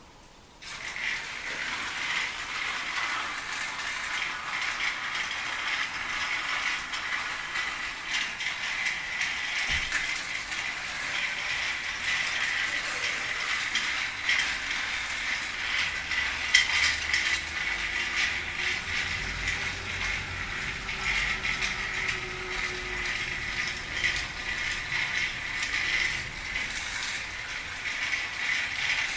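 Toy train running on its track: a steady mechanical whirr of small gears with many light clicks, starting about half a second in.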